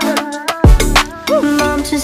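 Background music: a melody gliding up and down over drum hits and deep bass.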